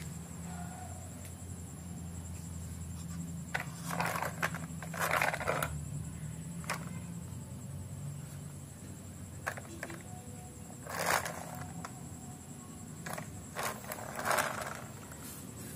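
Blue plastic toy truck handled and rolled, its plastic body and wheels scraping on a concrete floor in short, irregular bursts, over a faint steady low hum.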